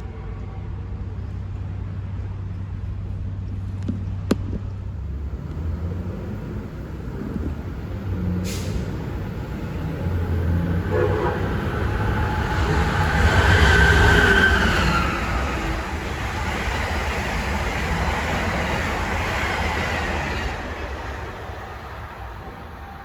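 A train passing on the Northeast Corridor main line. Its rumble and wheel noise build to a peak about halfway through, hold, then fall away near the end. A single sharp click comes a few seconds in.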